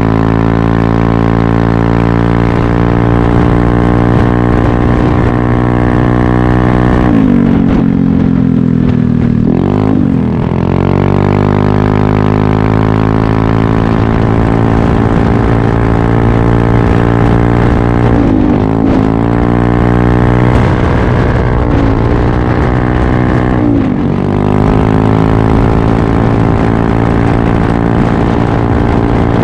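Yamaha Aerox 155 single-cylinder scooter engine running through a Corse Italian Performance aftermarket exhaust, holding steady high revs. The note dips and climbs back about a quarter of the way in, and three more times in the second half, as the throttle is eased off and opened again.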